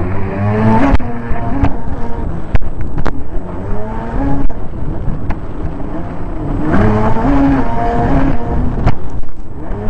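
Racing jet ski engine revving up and down hard, heard from on board, with the pitch rising sharply about a second in and again near seven seconds. Rushing water and wind run under it, and a few sharp slaps come from the hull hitting the water.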